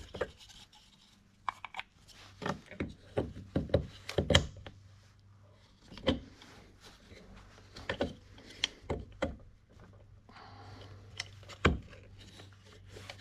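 Irregular clicks, knocks and rubbing of leaf blower parts and hand tools being handled as the starter assembly is fitted back on, with a couple of sharper knocks standing out. A faint steady low hum runs underneath.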